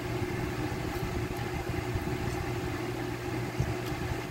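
Electric stand fan running, a steady motor hum and whir of moving air that does not change.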